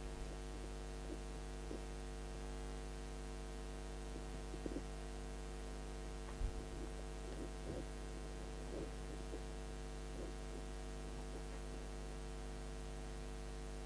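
Steady electrical mains hum, with a few faint taps and rustles of paper cards being moved about on desks.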